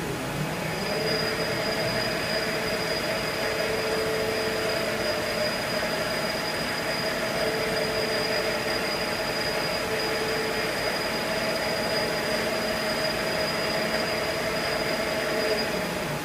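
CNC machining centre running with a steady whine of several held tones, starting about half a second in and cutting off near the end.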